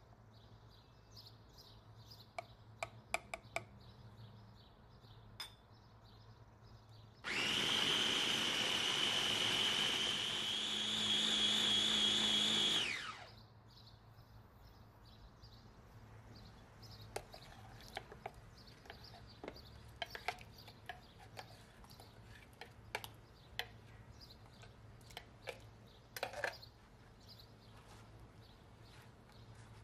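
Countertop blender motor starting about seven seconds in and running for about six seconds with a steady high whine while it purées a tomato, pepper and yogurt sauce, then winding down with a falling pitch.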